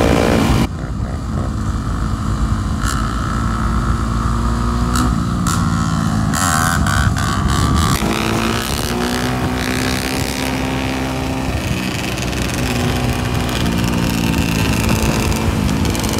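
Several dirt bike and quad (ATV) engines running close by, rising and falling in pitch as the riders work the throttle.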